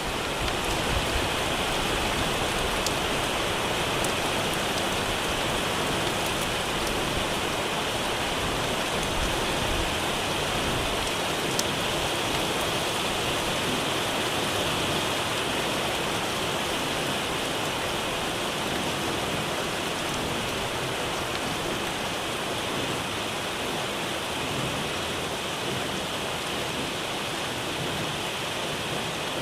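Heavy rain falling on the sea surface: a steady, dense hiss of countless drops.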